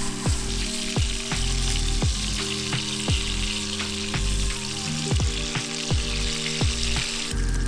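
Bacon and then sausages sizzling in a frying pan, under background music with a steady beat and bass.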